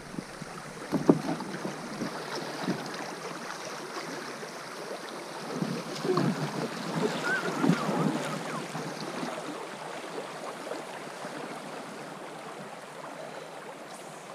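Fast river current washing around an inflatable rowing boat. There is a sharp knock about a second in, and a run of splashes and knocks between about six and eight seconds.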